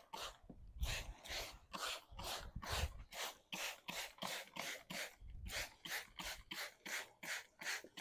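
Hand trigger spray bottle squeezed over and over, a short hiss about three times a second, spraying cleaner onto the truck's paint, with a few low bumps underneath.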